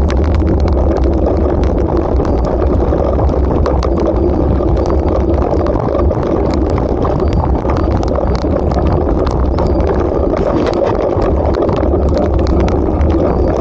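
Bicycle tyres crunching and rattling over a gravel track, with a steady low rumble of wind on the microphone and a constant scatter of small clicks and knocks from stones and the bike.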